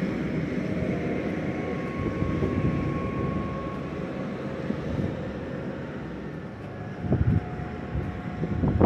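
Steady low rumble of vehicle noise, with a few louder low thumps near the end.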